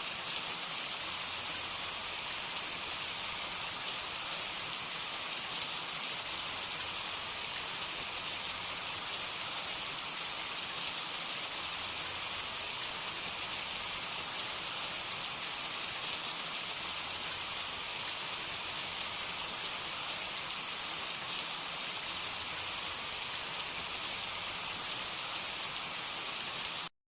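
Hot oil sizzling steadily with fine crackles as mini samosas and rolls deep-fry; it cuts off suddenly near the end.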